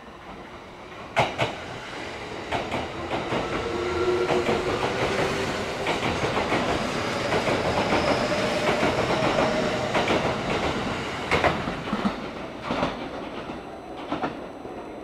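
Kintetsu electric train moving along the platform track, its wheels clacking over rail joints in irregular sharp clicks, with a faint motor whine. It grows louder over the first few seconds, holds, and fades away near the end.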